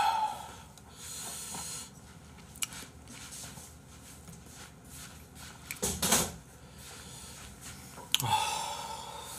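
A man breathing heavily in a small room, with a loud breath about six seconds in. A sharp click comes about eight seconds in, followed by another long breath.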